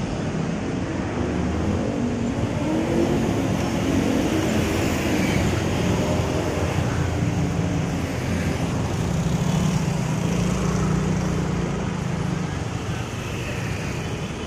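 Honda scooter engine pulling away and riding in city traffic, its pitch rising as it accelerates a couple of seconds in, then running steadily, with the rush of surrounding road traffic.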